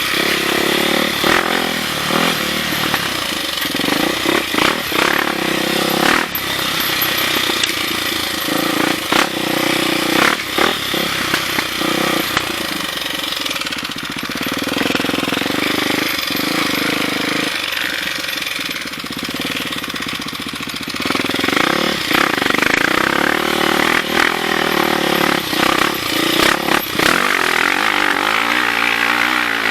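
Dirt bike engine running under load on a trail, its pitch rising and falling as it revs, with frequent short knocks.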